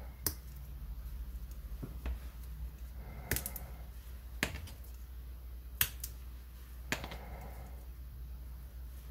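Pieces being popped out of a yellow punch-out sheet by hand: several sharp snaps and clicks, a second or more apart.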